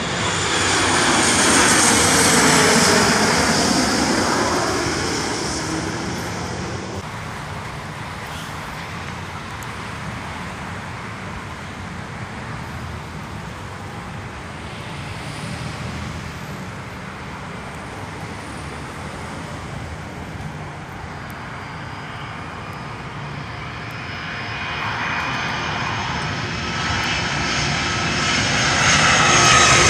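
An Embraer E145 regional jet passes low overhead on landing approach. Its jet engines are loudest about two to three seconds in, their whine falling in pitch as it goes by and fading over the next few seconds. Near the end, a Boeing 757-200 on approach grows steadily louder, with a high engine whine.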